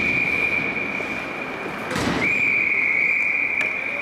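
A long, steady, high-pitched signal tone sounds twice, each blast about two seconds long with a short break between them. A knock falls in that break, over general rink noise.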